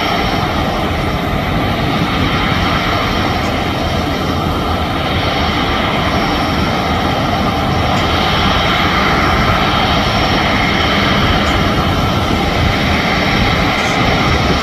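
Airbus A350's Rolls-Royce Trent XWB turbofan engines running at taxi power: a steady, loud jet engine noise that grows slightly louder in the second half.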